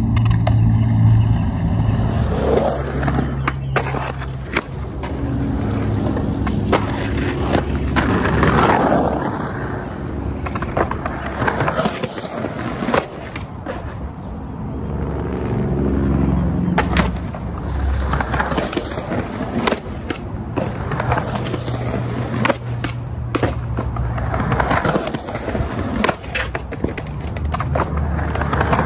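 Skateboarding on concrete: wheels rolling, with repeated sharp pops, board clacks and landings scattered through.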